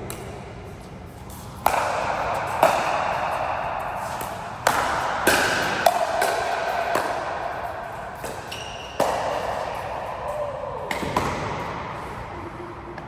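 A series of sharp hits or knocks at uneven intervals, about eight in all, each ringing on for a second or more before the next.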